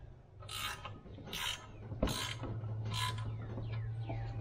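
Hand ratchet wrench clicking in about four strokes under a second apart, tightening the bolts of a steel bar clamped across an Eaton self-adjusting truck clutch pressure plate to compress it for resetting. A steady low hum runs underneath.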